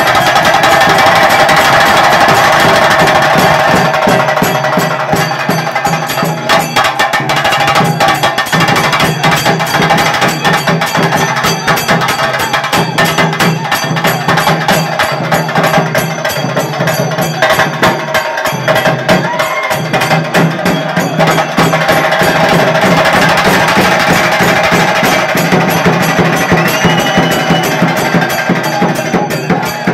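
Chenda drums beaten fast with sticks, a dense, unbroken run of sharp strokes.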